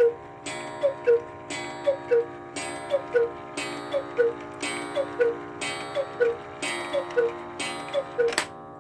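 Wooden cuckoo of an antique Black Forest quail cuckoo clock calling the hour: about nine two-note falling 'cuc-koo' calls, roughly one a second, over the clock's ticking. A loud click comes near the end.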